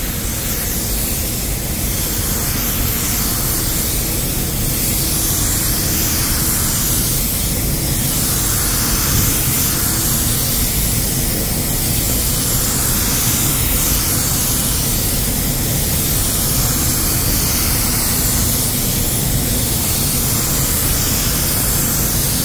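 Iwata W-300 spray gun with a 1.3 mm nozzle spraying varnish, a steady hiss of compressed air and atomised finish that swells and eases every couple of seconds.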